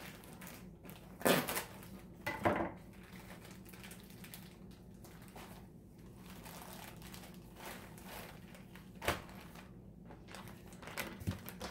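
Plastic packaging crinkling and rustling as it is handled, with two sharp knocks a little over a second apart early on and a lighter one near the end.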